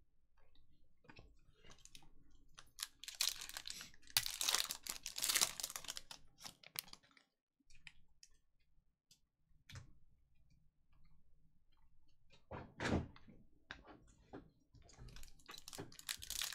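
Trading cards handled and flipped one by one, their edges clicking and sliding against each other in quick irregular clusters. Near the end a foil card pack starts to crinkle as it is opened.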